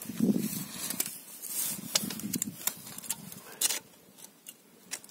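Irregular rustling and light clicks of handling, as a tape measure is drawn out and stood on the ground beside the motorcycle chain.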